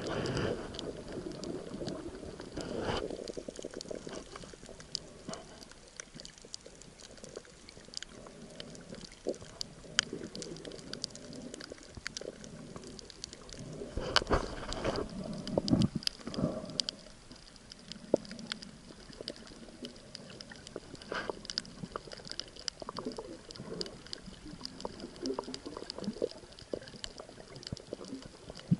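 Underwater sound picked up by a camera in its housing: a steady wash of water gurgling with many scattered sharp clicks, and a louder stretch of gurgling about halfway through.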